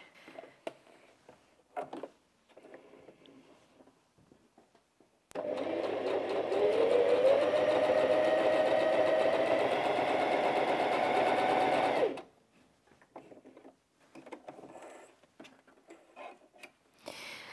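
Bernette 05 Academy sewing machine stitching a straight seam through denim with a jeans needle. It starts about five seconds in, speeds up over a couple of seconds with a rising whine, runs steadily, and stops sharply some seven seconds later, getting through the denim with ease. A few faint clicks come before and after.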